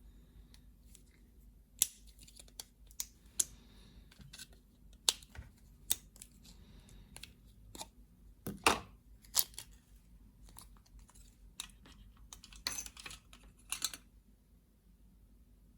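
Irregular clicks, taps and knocks of hands handling and prying at a lead-acid battery pack and its cells. One louder knock comes about halfway through, and a quick cluster of clicks comes near the end.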